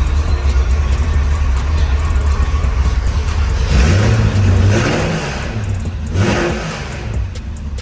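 Car engine running with a steady low drone, revved up twice, about four and six seconds in.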